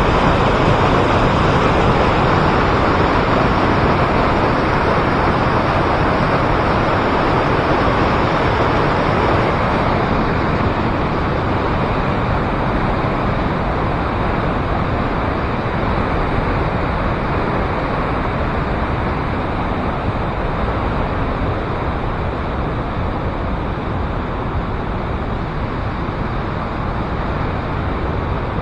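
Waterfall pouring: a loud, steady rush of falling water with no breaks, a little quieter and duller in the second half.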